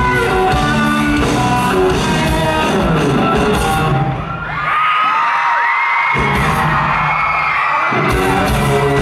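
Pop-rock band playing loud live through a hall's sound system. About halfway the bass and drums drop out briefly, and high screams from the crowd glide over the music.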